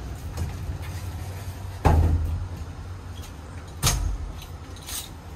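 Two heavy thumps about two seconds apart, then a lighter click, over a steady low rumble.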